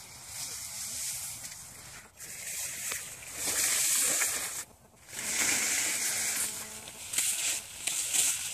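Fir branches swishing and rustling as someone pushes through dense young Christmas trees, in surges with short lulls about two and five seconds in.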